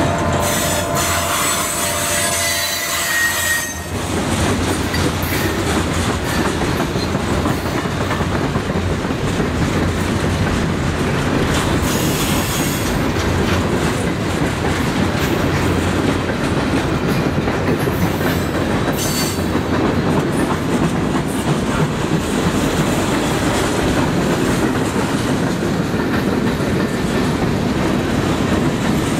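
Freight cars (boxcars, covered hoppers, a tank car) rolling past close by: a steady rumble and clatter of steel wheels over the rail, with high-pitched wheel squeals in the first few seconds, about 12 seconds in and about 19 seconds in.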